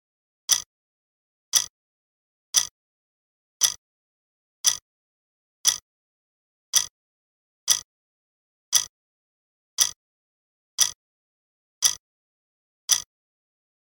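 Countdown timer sound effect: a short, sharp tick once a second, thirteen times, counting down the last seconds to midnight.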